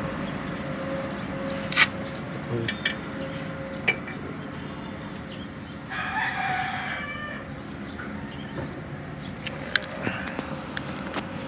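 A rooster crowing once, about six seconds in, for just over a second. A few sharp clicks come before and after it, over a steady low hum.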